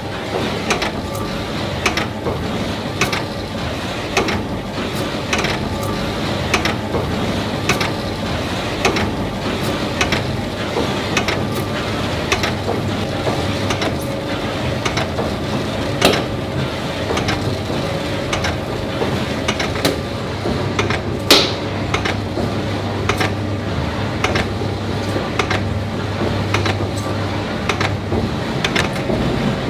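Conical dough rounder running: a steady mechanical whirr with regular clicking about one and a half times a second and one sharper click about two-thirds of the way through.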